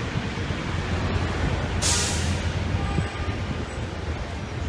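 Fire engine's diesel engine running with a steady low rumble, and a short hiss of released air from its air brakes about two seconds in.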